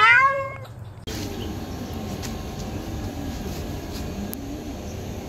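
A cat's meow rising and then falling in pitch, lasting under a second. About a second in it gives way to a steady outdoor background rumble and hiss.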